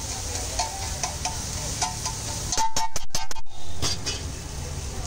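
Steel spatula scraping and clinking against a large flat iron tawa as egg bhurji fries, with a frying sizzle underneath. About halfway through comes a louder, muffled stretch of thumping lasting about a second.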